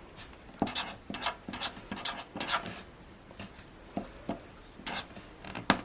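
Mechanical keyboard being typed on with Ajazz Banana switches: irregular keystroke clacks, quicker and closer together in the first half, sparser after, with one louder keystroke near the end.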